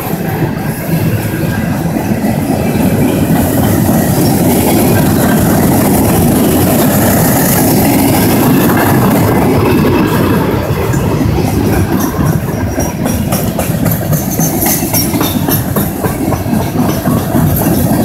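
CSX freight train's steel-coil cars and gondola cars rolling past: a loud, steady rumble of steel wheels on rail, with rapid clicking of wheels over rail joints that becomes more distinct in the last few seconds.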